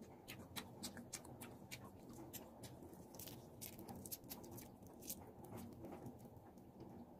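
Faint, irregular crackling clicks of crisp fried shrimp shells being peeled apart by hand, several a second.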